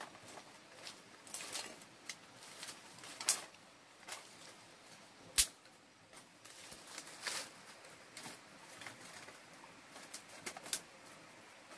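Dry twigs and sticks being handled and stacked on a dirt floor as kindling: scattered light clicks and rustles, with one sharp crack about five seconds in.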